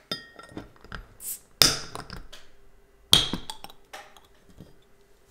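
Several sharp clicks and clinks of tableware and food containers being handled on the table, the two loudest about a second and a half apart, each ringing briefly.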